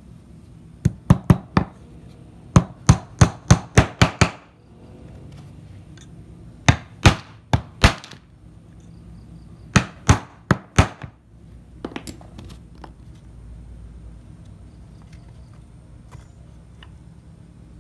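Hammer driving nails through a wooden crossbar into wooden easel legs: quick runs of sharp knocks, four bursts of blows in the first eleven seconds, the longest about seven strikes. A few faint taps follow, then only low room noise.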